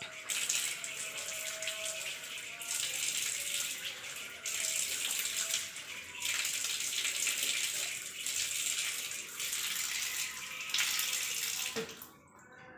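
Water running from a wall tap and splashing as hands and face are washed under it, the splashing swelling and easing every couple of seconds as water is cupped and thrown. The flow stops suddenly near the end as the tap is shut off.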